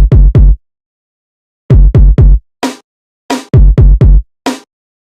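Bass-boosted electronic ringtone: a drum-machine beat of heavy bass-drum hits in quick groups of three, so loud they clip, alternating with single sharper snare- or clap-like hits, with short silent gaps between phrases.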